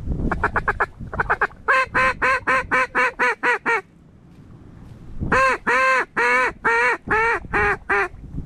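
Mallard duck call blown hard and close: a quick run of short quacks, then a longer string of evenly spaced quacks. After a pause of about a second and a half comes a slower cadence of longer, drawn-out quacks, calling passing mallards in to the decoys.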